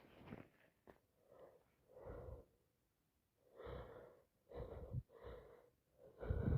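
A woman's short gasping breaths and sniffles, a series of them about a second apart, the loudest near the end, from a runny, itchy nose with a cold or allergies as she works up to another sneeze.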